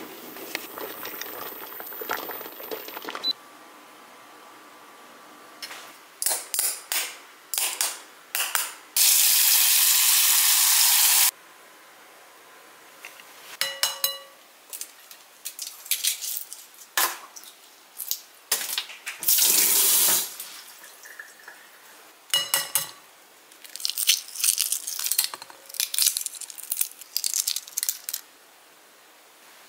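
Hard-boiled eggs knocked and cracked against a glass bowl, one knock leaving a short glassy ring. Tap water runs into the sink for about two seconds a third of the way in, and briefly again later. Near the end the eggshells crackle as they are peeled.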